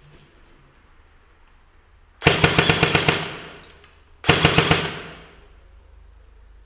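An airsoft rifle firing two full-auto bursts, about a second long and then shorter, roughly two seconds apart. Each is a rapid, even string of sharp shots at about ten a second.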